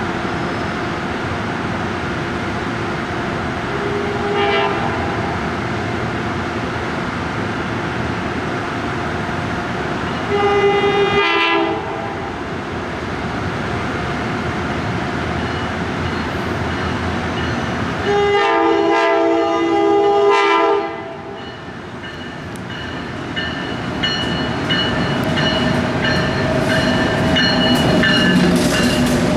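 Amtrak AEM-7 electric locomotive sounding its horn three times as it comes in: a short toot, a longer blast, then a long blast of about three seconds. Its train then passes close by with a steady rail rumble that grows louder near the end.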